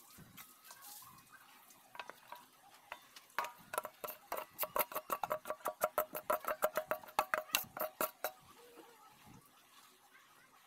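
Metal spoon scraping and knocking against the inside of a metal pot as cooked rice is scooped out into a wok: a quick run of ringing metal clinks, about six a second, from about three seconds in until about eight seconds in, with softer scraping before and after.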